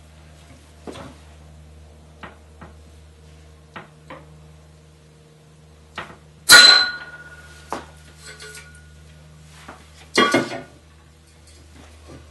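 A hardened 5160 steel test blade, bent in a vise with a pipe lever, snaps about halfway through with a loud sharp crack and a short metallic ring, breaking at about 75 degrees of bend. A second, shorter metal clatter comes about four seconds later, over a steady low hum and a few light clicks.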